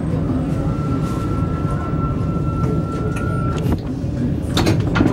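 Alstom NS-16 metro train running and slowing into a station, heard from the cab: a steady low rumble with a thin steady whine over it for about three seconds, then a few clicks and knocks near the end.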